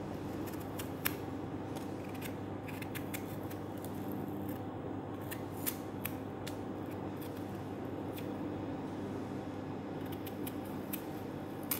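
Kitchen knife paring the green skin off a strip of watermelon rind, the blade making scattered sharp clicks and snicks as it cuts, over a steady low hum.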